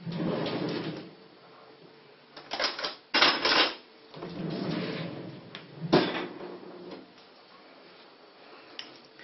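Kitchen drawer and cutlery being handled as a small spoon is fetched: rustling and rattling, a quick run of sharp clatters about three seconds in, and a single sharp click about six seconds in.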